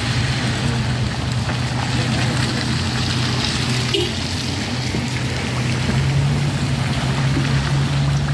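Engines of small MPVs running at low speed as they creep past one after another on a wet, muddy road shoulder. It is a steady hum that steps up slightly in pitch about six seconds in.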